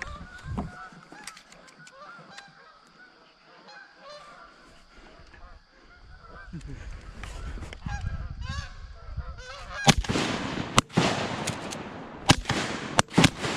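A flock of Canada geese honking, many overlapping calls, as they fly in. About ten seconds in a shotgun fires, followed by two more shots close together near the end.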